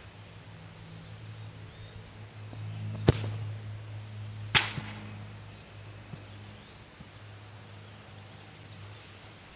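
Two sharp thumps of a soccer ball being struck, about a second and a half apart, over a steady low hum.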